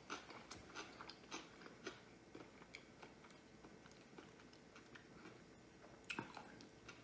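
Close-miked chewing of a low-carb sushi roll: faint, wet mouth clicks, densest in the first couple of seconds, with a louder cluster about six seconds in.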